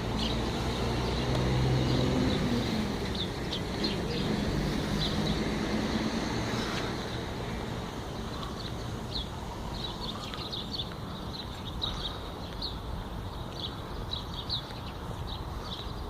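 A vehicle engine running low, fading away after about seven seconds, with small birds chirping repeatedly.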